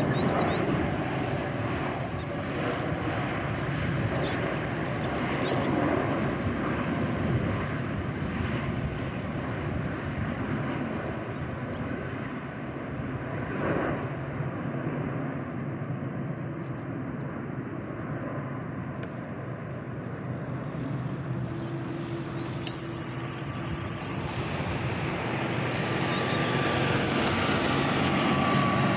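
Jet airliner noise from an Airbus A380 on final approach: a steady roar that swells and fades gently. In the last few seconds the jet noise grows louder with a steady high whine, from a Boeing 787 on the runway.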